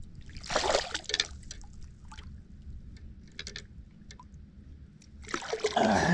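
Water splashing and dripping as a small bass is lifted out of the water, in a burst about half a second in and a louder one near the end, with light clicks in between.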